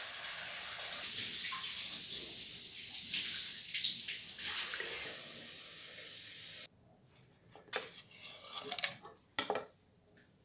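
Kitchen tap running steadily. It cuts off abruptly about two-thirds of the way in, and a few light knocks follow.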